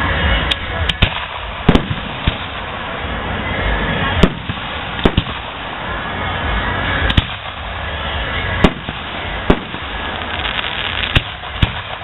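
Aerial fireworks display: about a dozen sharp bangs of shells at uneven intervals, some in quick pairs, over continuous background noise.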